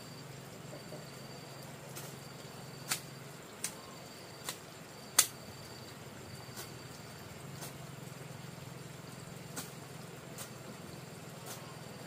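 Insects calling, a thin high trill switching on and off every second or so over a low steady hum, with a scattering of sharp clicks or taps, the loudest about five seconds in.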